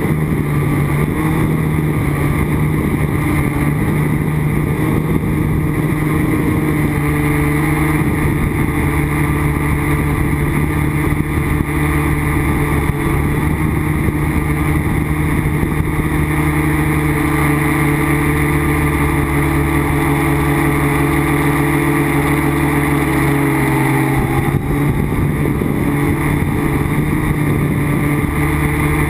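Quadcopter's electric motors and propellers buzzing in flight, heard from its onboard camera: a steady, loud hum whose tone shifts about seven seconds in and again about twenty-four seconds in.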